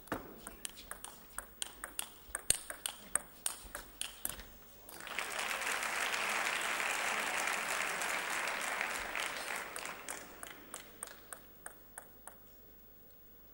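Table tennis rally: the ball clicks off the bats and the table several times a second for about five seconds. A crowd then applauds for about five seconds, and as the applause fades, the clicks of another rally follow.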